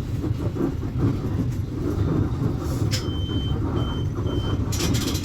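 Volksbus 9.160 OD bus diesel engine running steadily. About three seconds in, a click and three short high beeps sound, followed near the end by a short burst of hissing air.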